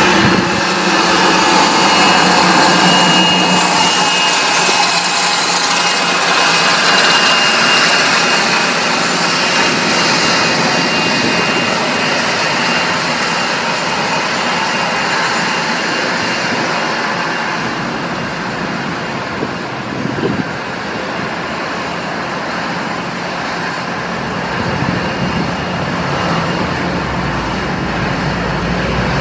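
Jet engines of an Embraer ERJ-145-family twin-jet running while it taxis: a steady jet roar with a high turbine whine. The sound eases off somewhat in the middle and builds again near the end.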